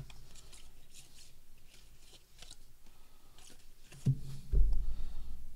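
Baseball cards being slid and flipped against one another in the hands, making soft, repeated papery rustles. About four seconds in comes a low thump, followed by a deep rumble lasting about a second.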